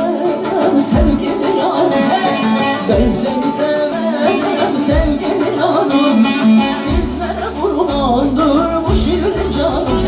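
Live band playing an Azerbaijani folk-song medley with a steady beat, and a woman singing into a microphone over it, mostly in the second half.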